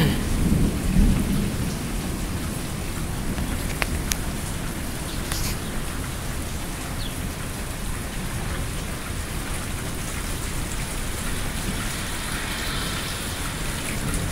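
Steady rain falling, with a low thunder rumble underneath that is a little louder in the first second or two.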